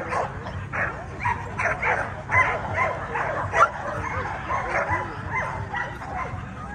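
Several pit bulls barking and yipping in quick, overlapping calls, with a low murmur of crowd voices underneath.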